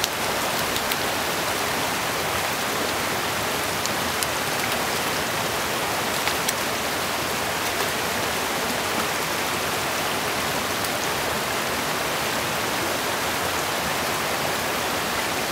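Steady rushing of a small mountain stream's flowing water, with a few faint clicks along the way.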